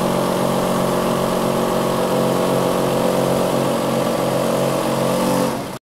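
Mobile crane's diesel engine running at a steady speed while it hoists a liquid oxygen tank. The sound cuts off suddenly near the end.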